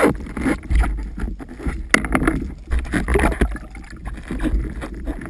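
Water sloshing and splashing around a speargun-mounted camera as it moves between the surface and underwater, with uneven surges, a low rumble and several sharp knocks from handling the gun and the speared fish.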